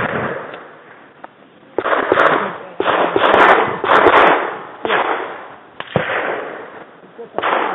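Pistol gunfire: single shots at an irregular pace, roughly one a second, each trailing a long echo.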